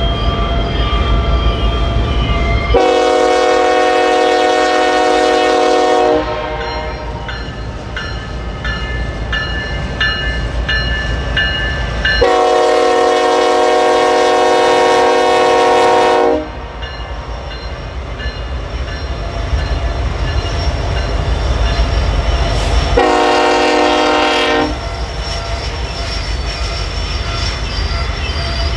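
Freight locomotive air horn sounding three steady blasts: two long ones about ten seconds apart, then a shorter one near the end, over the continuous low rumble of diesel locomotives and rolling freight cars.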